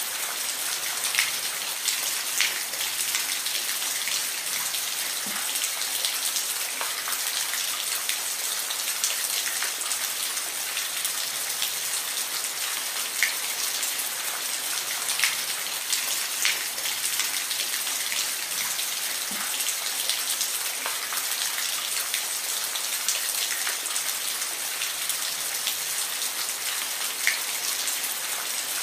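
Steady rain falling, an even hiss with individual drops tapping sharply here and there.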